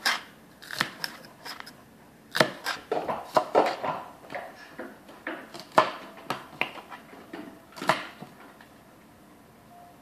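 Jars and containers in a refrigerator knocking and clinking as a baby handles them: an irregular clatter of sharp knocks in clusters, with short pauses between.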